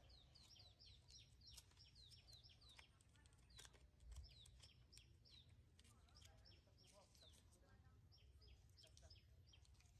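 Faint bird calls: runs of short, quick chirps that slide downward in pitch, several a second, broken by brief pauses, over a low steady rumble.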